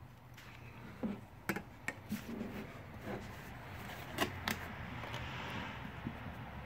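A handful of light clicks and knocks from a plastic measuring cup and plastic oil jug being handled over a metal funnel, with a soft steady hiss in the middle stretch.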